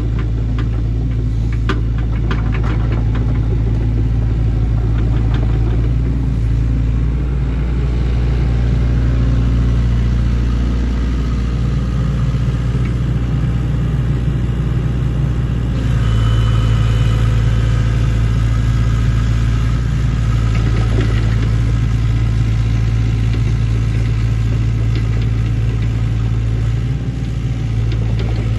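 Sany excavator's diesel engine running steadily, with a few light clanks in the first few seconds; it grows louder a little past halfway through, as if working harder.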